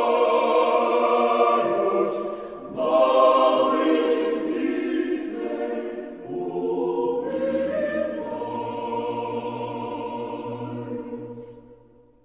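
Choir singing slow, held chords in three phrases with short breaths between them; a low sustained bass note comes in under the last phrase, which fades out near the end.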